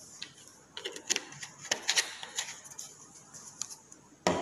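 Light clicks and taps of a plastic bottle being handled and set down on a table, with a louder knock near the end.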